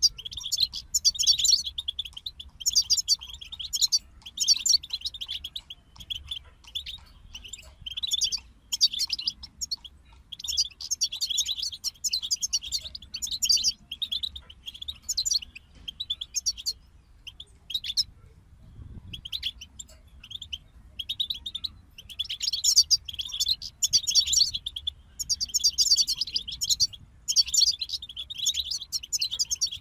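European goldfinches singing: fast twittering, trilling song phrases in bursts with short gaps, and a longer break a little past halfway.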